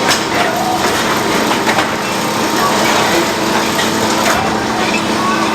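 Sawmill machinery running steadily while sawing lumber from a log, with scattered knocks of wood.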